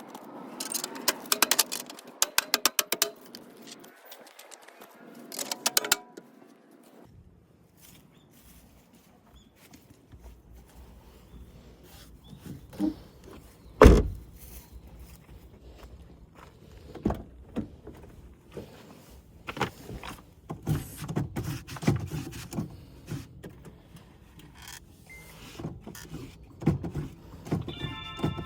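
Hand tools clicking and knocking on a car's rear brake assembly, with a quick run of sharp clicks in the first few seconds, one loud knock about halfway, and scattered knocks later.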